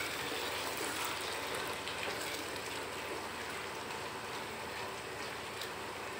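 Arvi (taro root) curry sizzling in a nonstick pot as it is stirred with a spatula: a steady hiss with a few small pops.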